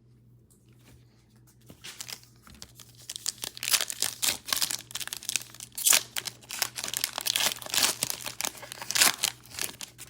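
Plastic trading-card pack wrappers crinkling and tearing as packs are ripped open, a dense run of sharp crackles starting about two seconds in.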